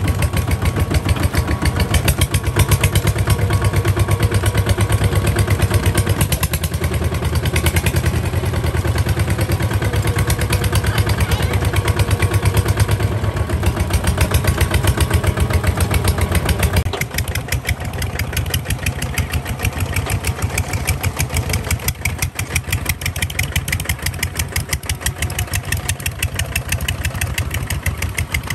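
Single-cylinder diesel engine of a two-wheel walking tractor running steadily with an even chugging pulse while the tractor drives. A little past halfway through it becomes quieter.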